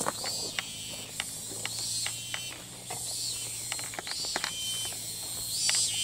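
Cicada singing in a rattling series of irregular clicks, with a short chirp about every two seconds.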